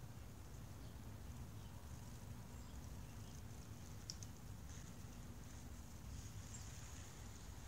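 Quiet outdoor ambience: a steady low rumble, with a faint hum now and then and a few light ticks.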